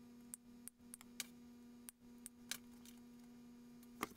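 Near silence: a faint steady hum with a few light, scattered clicks.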